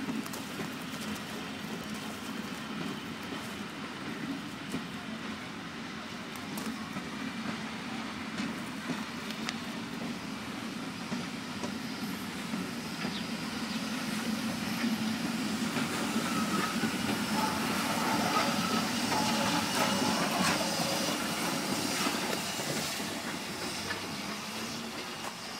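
Steam-hauled passenger train rolling past: the ČSD class 498.1 'Albatros' steam locomotive and its coaches, wheels clicking over the rail joints. It grows steadily louder and peaks about three-quarters of the way through as the locomotive comes closest, then begins to fade.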